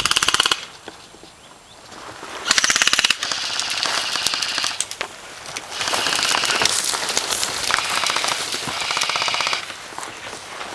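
Airsoft guns firing on full auto: a short burst of rapid clicking shots at the start, another about two seconds in, then longer stretches of sustained rapid fire through the middle that die away near the end.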